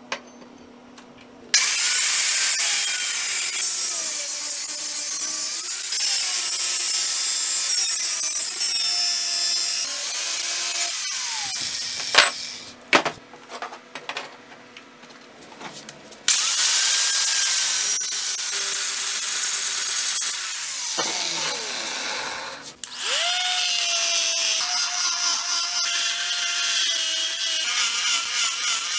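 Electric grinders shaping a steel axe head: a handheld straight rotary grinder with a burr cutting into the metal, the motor whine sagging and recovering as it bites. About halfway there is a quieter break with a few sharp metal clicks, then the motor spins up, winds down, and spins up again into a pulsing grind near the end.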